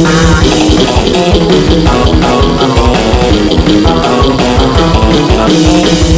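Loud rock music with guitar and a quick, steady drum beat.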